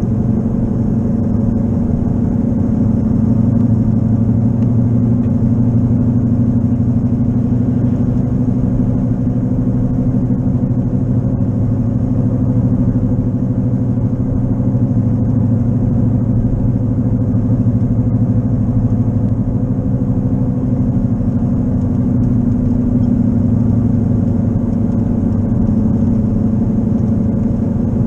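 Car interior noise at highway speed, a steady low drone and rumble from a 2011 Chevrolet Malibu whose left wheel bearing is bad, growing louder with road speed.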